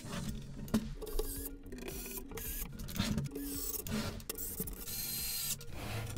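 A Sony MHC-RG333 mini hi-fi unit being gripped and slid around on a workbench: its plastic and metal cabinet scrapes and rubs against the bench in several short stretches, with a few knocks and clicks from handling.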